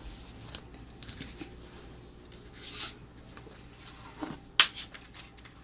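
Small eating and food-handling sounds: a few short rustles and crackles, a brief hiss partway through, and a sharp click a little after four and a half seconds.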